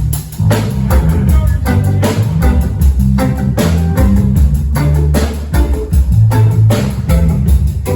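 Live band playing: a drum kit keeps a steady beat over a bass guitar and guitar.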